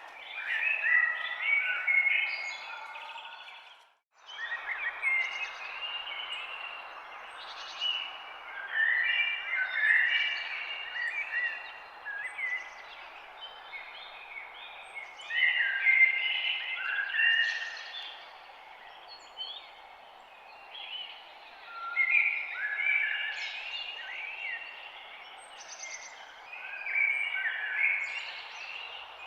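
Forest ambience of several birds chirping and singing in overlapping short phrases over a steady background hiss, with a brief dropout to silence about four seconds in.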